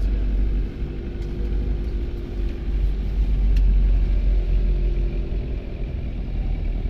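A car moving along a road: a steady low engine and road rumble with a faint constant hum.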